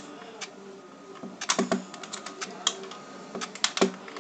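Small clicks and taps of pistol parts being handled and pried apart while the gun is disassembled. The clicks are scattered and come in two louder bunches, about one and a half and three and a half seconds in.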